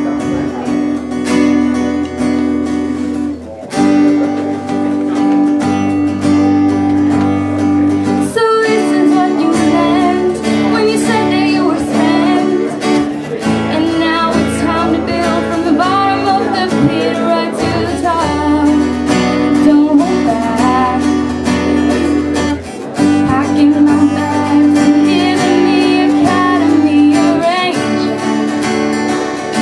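Acoustic guitar strummed in steady chords, joined about eight seconds in by a singing voice.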